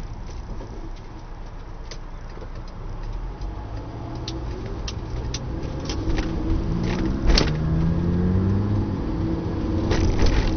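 Car engine heard from inside the cabin, accelerating away from a stop: its pitch rises, breaks with a click at a gear change about seven seconds in, and climbs again, louder toward the end, with scattered clicks and knocks.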